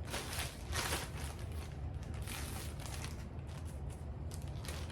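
Shipping bag packaging crinkling and rustling in several short bursts as it is handled and opened.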